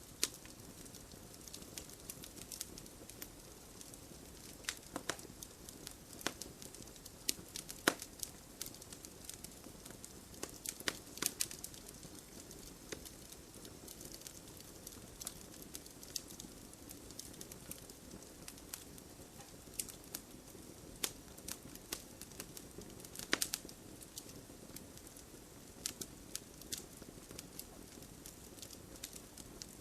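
Wood fire in a fireplace crackling, with irregular sharp pops and snaps from the burning logs over a soft steady hiss of the flames.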